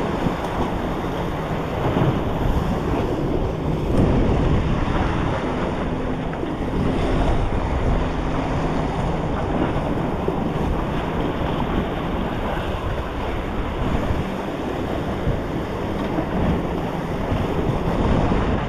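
Ocean surf breaking and washing over jetty rocks, with wind buffeting the microphone: a steady, unbroken rush.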